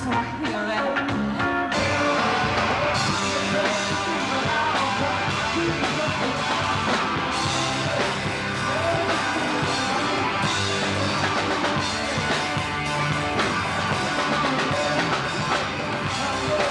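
Rock band playing with singing, electric guitar and drums, heard through a VHS camcorder's built-in microphone; the cymbals and high end fill in about two seconds in.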